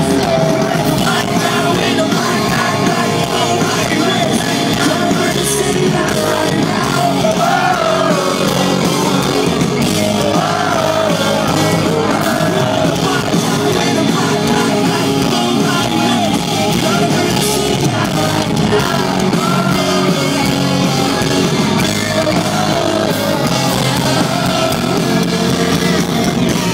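Live rock band playing loud and without a break: electric guitars, bass and drums, with a singer's voice wavering over the top.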